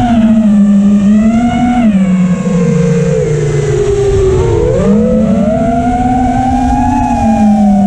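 Brushless motors and propellers of an iFlight Nazgul5 5-inch FPV quadcopter on a 6S battery, heard from its onboard camera: a loud buzzing whine whose pitch falls and rises with the throttle, dropping lowest about four seconds in and climbing back soon after.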